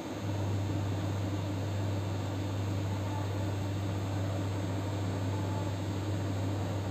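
A steady low hum that starts abruptly just after the start and holds at one pitch, over a constant hiss.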